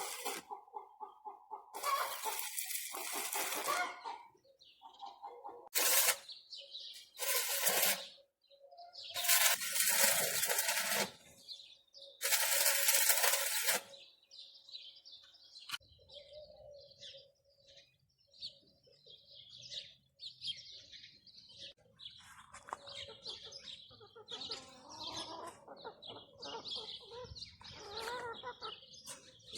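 Several loud bursts of rushing noise, each a second or two long, in the first half. Then many small birds chirp and twitter in quick, overlapping calls.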